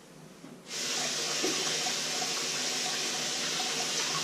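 Kitchen tap turned on suddenly about a second in, then water running steadily from it.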